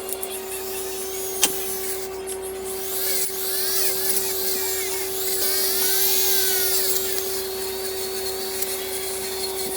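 A small high-speed power tool motor running with a steady whine, with a shifting high hiss and a single click about one and a half seconds in.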